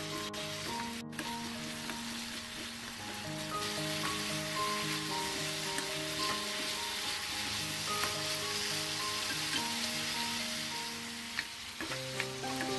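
Pork belly and garlic cloves sizzling in a frying pan as they are stirred with a wooden spatula, with a couple of light knocks near the end. Background music with a slow stepping melody plays over it.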